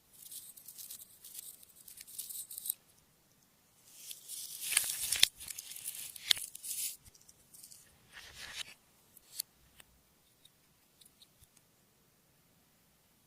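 Clear slime being worked by hand, giving crackly, squelchy noise with small popping clicks in bursts. The loudest burst comes about four to seven seconds in, and toward the end only a few scattered clicks remain.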